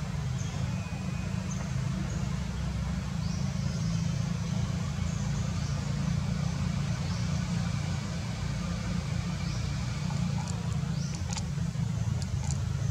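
Steady low rumble, with faint short high chirps above it and a few sharp clicks near the end.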